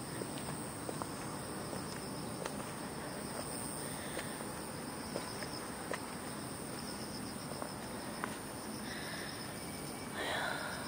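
Insects chirping steadily in a high, evenly pulsing band over a steady outdoor background, with scattered light ticks and a brief louder noise near the end.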